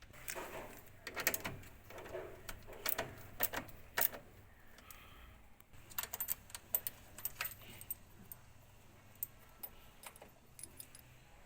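Irregular light clicks, knocks and small metallic rattles, as of parts or tools being handled, busiest in the first few seconds and again about halfway through.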